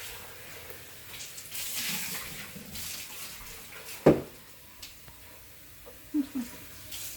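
Water running and splashing with an uneven hiss, as plain water is run to rinse vinegar out of a cleaned espresso machine. A sharp clack about four seconds in is the loudest sound.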